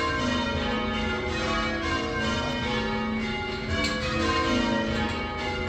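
Change ringing on the Swan Bells, the old St Martin-in-the-Fields tower bells, rung full circle: a continuous sequence of bell strikes whose tones overlap and hang on. They are being rung in call changes, holding one order of the bells between the conductor's calls.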